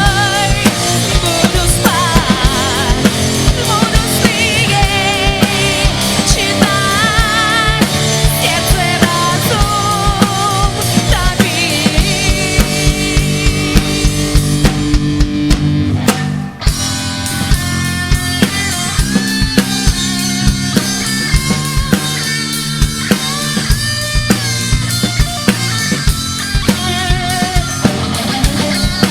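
Rock music with a drum kit, bass and electric guitar, led by a wavering sustained melody line, with a short break about halfway through.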